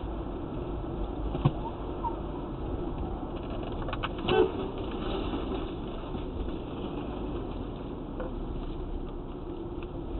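Steady road and engine noise inside a moving car's cabin, picked up by a windscreen dashcam. There is a sharp click about a second and a half in and a brief loud knock about four seconds in.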